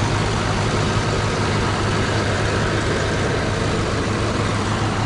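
Bus diesel engine idling: a steady low hum.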